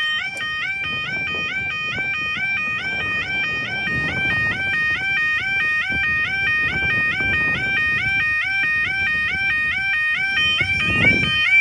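Warning alarm of an automatic half-barrier level crossing, a loud electronic tone alternating rapidly and regularly between two pitches without a break.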